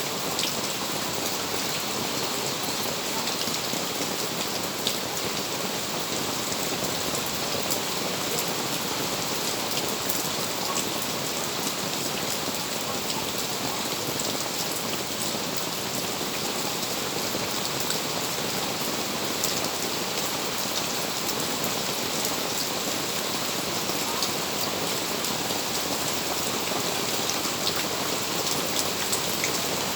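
Steady rain falling, an even hiss with scattered small drop clicks throughout.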